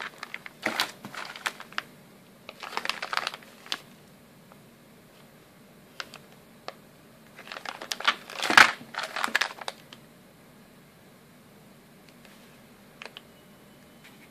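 Clear plastic parts bag crinkling as it is handled and turned over, in three bursts, the loudest about eight seconds in, with a few light ticks between.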